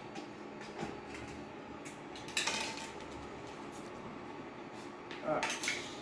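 A few light clinks and knocks of small hard objects being handled, the loudest a little over two seconds in, with a brief voice near the end.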